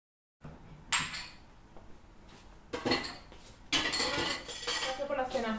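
Plates and cutlery clinking as dishes are cleared from a kitchen counter: a few separate clinks at first, then a busier clatter from about three and a half seconds in.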